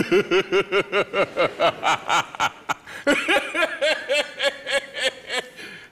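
A man laughing loudly, a long run of 'ha-ha-ha' at about four or five bursts a second, breaking briefly for breath near the middle and then starting again at a higher pitch.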